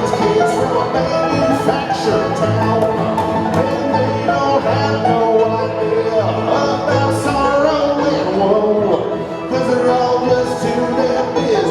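Live bluegrass band playing an instrumental break, banjo and guitar over a walking bass line.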